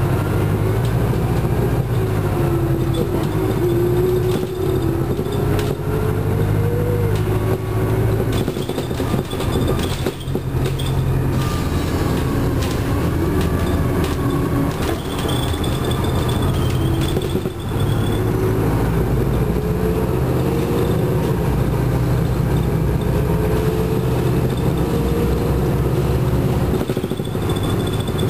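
Detroit Diesel Series 50 four-cylinder diesel engine of a Nova Bus Classic transit bus running under way, heard from inside the bus. A whine climbs slowly in pitch twice as the bus gathers speed, with a few brief rattles in between.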